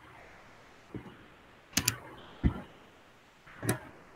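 A few scattered computer keyboard and mouse clicks, about four separate taps, as a command is copied and entered in a terminal.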